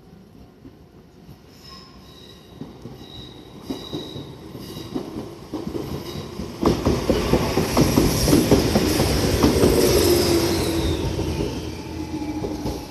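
Shizuoka Railway 1000 series electric train passing close by. It grows louder as it approaches, then runs past with a rapid string of wheel clacks over the rail joints at its loudest. A thin high tone falls in pitch as it goes by, and the sound eases near the end.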